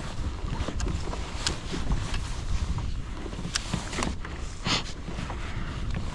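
Wind rumbling on the microphone, with a few scattered sharp clicks and knocks; the most prominent comes a little under five seconds in.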